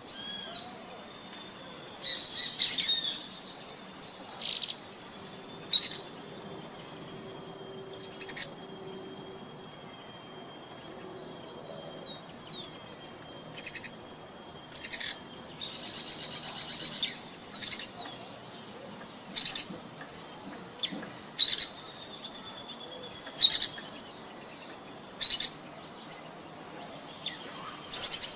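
Wild songbirds calling in a forest: short, high chirps and whistles every second or two, with a brief buzzy trill about halfway through, over a faint steady high hum.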